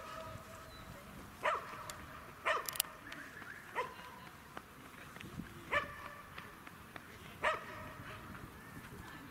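A dog barking single barks, about six of them spaced a second or two apart.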